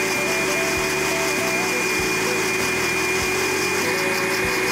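Countertop blender running steadily, puréeing fried brown onions with boiling water into a smooth paste; its motor whine holds one even pitch throughout.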